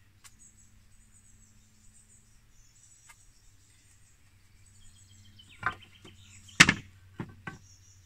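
Wooden battens set down on a plywood van floor: four sharp wooden knocks in the last few seconds, the second the loudest, over faint high birdsong.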